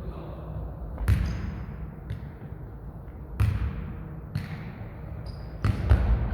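Jokgu ball being kicked and bouncing on the court during a rally: sharp thuds about every two seconds, with two hits in quick succession near the end, and a couple of brief high squeaks.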